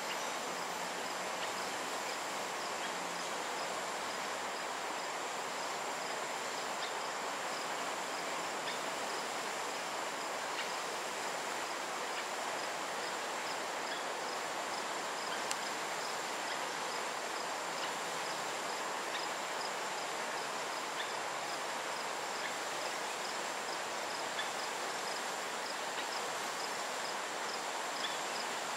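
Insects calling steadily: a constant high-pitched drone with a faint chirp repeating at an even pace, over an even hiss of forest ambience.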